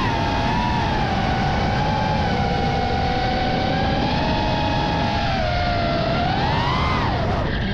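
FPV freestyle quadcopter's Hypetrain brushless motors and propellers whining. The pitch holds fairly steady, sags a little about five seconds in, then swoops up and falls sharply near the end as the throttle changes.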